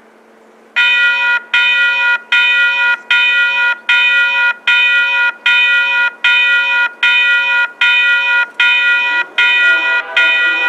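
Railway level-crossing warning bell starting up and ringing in a steady, rapid rhythm, about two strokes a second, as the crossing activates for an approaching train. About nine seconds in, a second, lower-pitched bell joins it.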